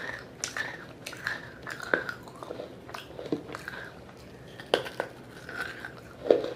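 Biting and chewing a wet clay pot: sharp crunches as pieces of fired clay snap off between the teeth, with chewing in between. The loudest crunches come about three-quarters of the way through and near the end.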